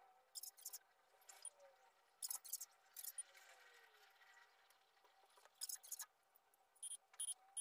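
Faint scattered clicks and taps from a handheld phone being handled and tapped. Near the end a quick, even, high chirping starts, about three chirps a second.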